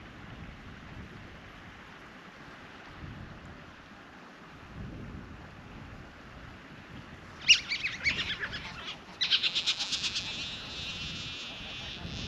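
North American river otters calling while mating: loud, high-pitched calls begin about halfway through, followed by a quick run of pulsed calls at about seven a second, then fainter calls toward the end.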